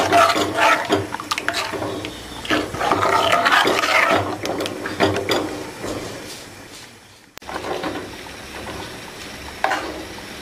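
Steel spoon stirring and scraping thin curry in a clay pot, with irregular clinks against the pot and liquid sloshing. About seven seconds in, the sound cuts to a quieter, steadier background with a few light clinks.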